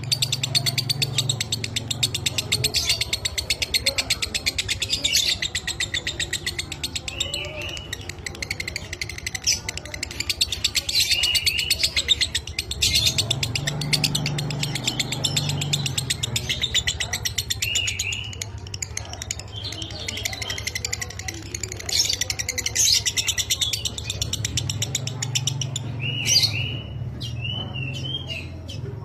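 Lovebird singing a long, rapid, rattling chatter ('ngekek'), broken now and then by short chirps that rise and fall, with a steady low hum underneath.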